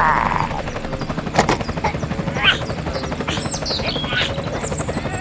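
Small electric motor of a DIY model vehicle running with a fast, even rattling clatter, with a few short high chirps in the middle.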